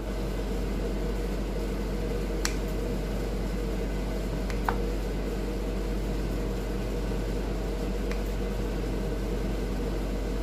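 Steady mechanical room hum, with three brief sharp clicks spread through it as kitchen scissors snip through a stack of dry pappadams.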